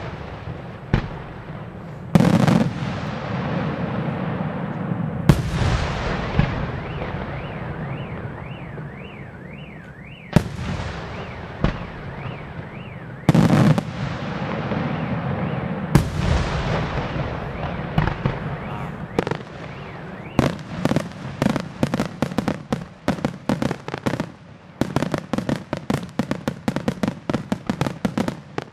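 Aerial firework shells bursting in loud booms every few seconds, each with a long rumbling tail. A wavering high tone runs through the middle. Toward the end the shots quicken into a dense volley of sharp reports.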